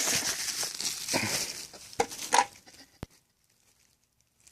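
Packaging paper or plastic wrap rustling and crinkling as an item is unwrapped by hand, followed by a few small knocks and a sharp click about three seconds in, then silence.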